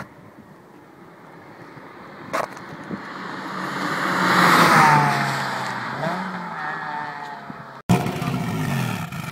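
A Nissan Primera driving fast down a runway and passing close by: its engine grows louder for about four seconds, peaks as the car goes past, then drops in pitch and fades. Near the end, abruptly, another car's engine running right at its exhaust tailpipe.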